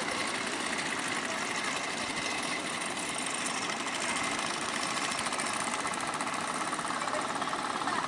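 The stern-mounted engines of an outrigger fishing boat running steadily with a fast, even rattling beat, over the hiss of surf.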